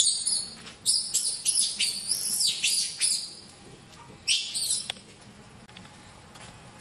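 Baby macaque squealing in shrill, high-pitched bursts: a long run of cries over the first three seconds and a shorter one about four seconds in. These are the distress cries of an infant being grabbed and held back by another monkey.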